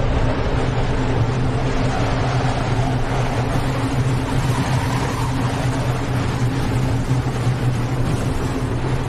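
Steady, unbroken low drone from a haunted-house ambience track: a constant deep hum with fainter tones above it, under an even rushing hiss.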